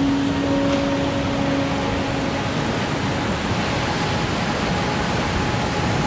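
Whitewater of Wild Sheep Rapid, a Class IV rapid on the Snake River, rushing steadily as the raft enters it.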